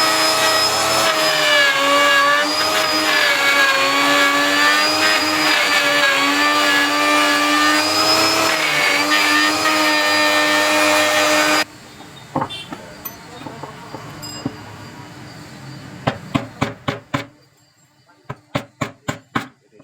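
An electric power tool's motor runs with a steady whine that wavers slightly in pitch, then stops abruptly about twelve seconds in. Near the end come two quick runs of sharp taps on wood, about four or five a second.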